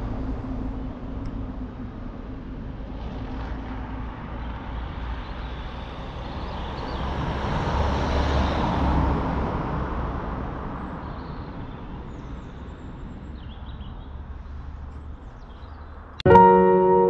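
Outdoor road traffic: a low engine hum fades away, then a vehicle passes, swelling about eight seconds in and fading out. Piano music starts suddenly near the end.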